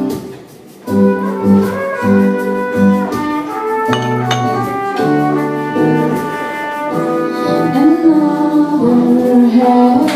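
Live band playing a song, a brass-sounding melody over a steady beat, after a brief drop in level just under a second in.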